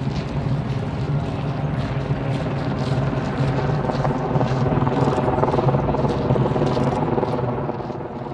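Steady engine drone with a strong low pitch, fading out at the very end.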